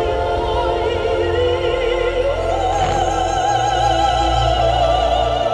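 Operatic music with orchestra: a singer holds long notes with wide vibrato, stepping up to a higher held note a little over two seconds in.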